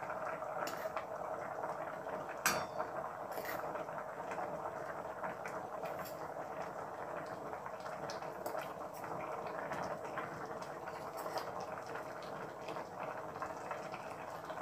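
Rice and water simmering in a pot, bubbling steadily, with a few light clinks of a steel spoon against a steel bowl and the pot as ragi flour is spooned in.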